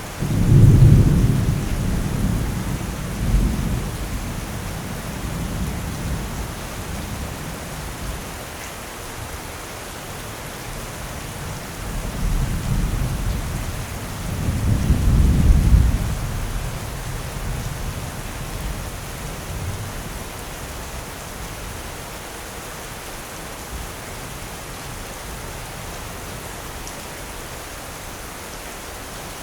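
Steady heavy rain with two rolls of thunder: a loud clap right at the start that rumbles on for several seconds, and a second rumble building from about twelve seconds in to a peak near sixteen before dying away to rain alone.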